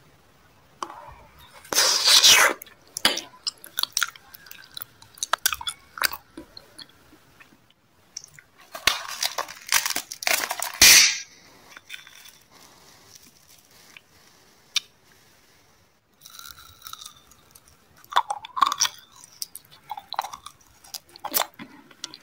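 Close-miked eating sounds: sweets being crunched and chewed in several loud bursts of cracking and wet mouth noise, with quieter gaps between.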